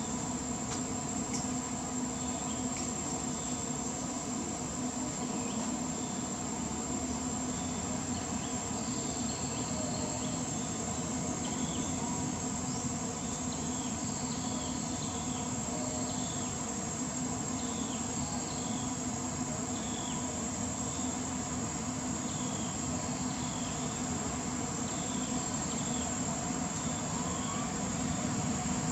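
Steady high insect drone. From about nine seconds in, short falling chirps repeat every second or two.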